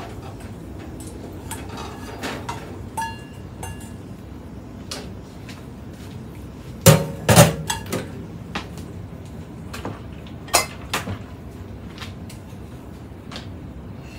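A spoon clinking, scraping and knocking against pans as potato chunks are scooped into a frying pan, with a short metallic ring about three seconds in and two loud knocks about halfway through.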